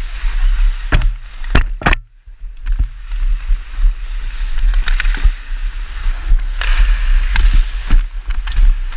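Hockey skates scraping and carving on rink ice, heard from a helmet-mounted microphone with wind rumble on it, with a number of sharp clicks from the hockey stick against the puck and ice; the sound drops away briefly about two seconds in.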